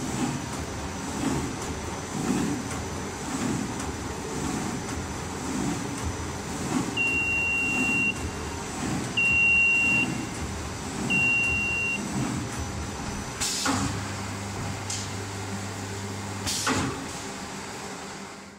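QZ1300 paper sheet-cutting machine running, with a rhythmic beat about once a second. Three high beeps of about a second each come midway, then a low steady hum sets in with a click and stops with another click near the end.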